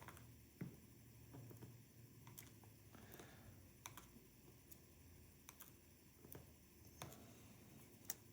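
Faint, irregular small clicks of dimple-lock pins and springs being shaken and tapped out of the lock cylinder.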